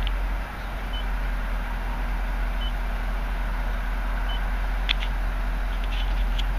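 Short, high electronic beeps from a car wash's signal beeper, repeating about every one and a half seconds over a steady low vehicle rumble, with a few light clicks near the end.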